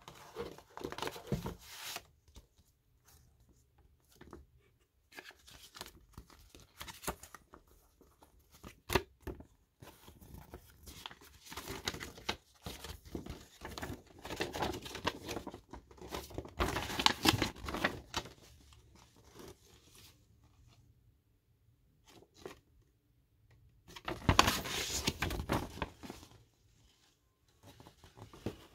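A glossy paper fold-out lyrics sheet being unfolded and handled, rustling and crinkling in irregular bursts. The loudest bursts come about halfway through and again near the end.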